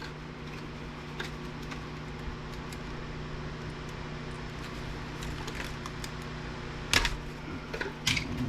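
Light clicks and clatter of electronic circuit boards and parts being handled, over a steady low hum, with two sharper knocks near the end.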